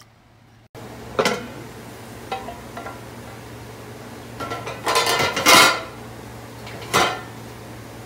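Metal utensils clinking and knocking against a large metal cooking pot: a few separate ringing clinks, with a louder run of them about five seconds in, over a steady low hum.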